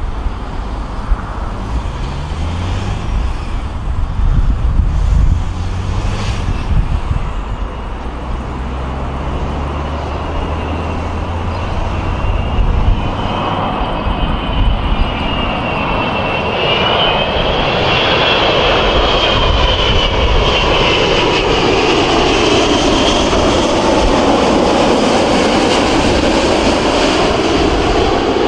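Airbus A380-861 on final approach, its four Engine Alliance GP7200 turbofans growing steadily louder as it comes in low overhead. A high, wavering fan whine rides over the broad jet noise, and it is loudest over the last several seconds.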